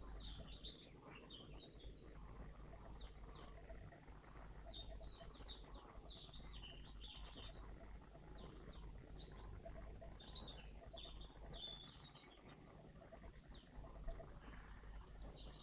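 Small songbirds chirping, faint: many short, high calls in irregular clusters, over a low steady background rumble.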